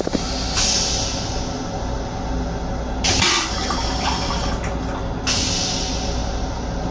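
Stainless-steel toilet on a Metro-North M7 railcar flushing. There is a click near the start, then hissing rinse water and draining in several surges over the steady low rumble of the train.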